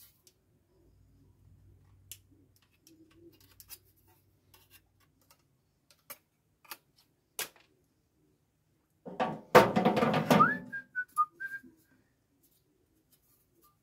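Hand snips trimming a cardboard template, a few scattered faint snip clicks, then a loud rustling clatter lasting about a second and a half. It is followed by a short whistled phrase that glides up and wavers for about a second.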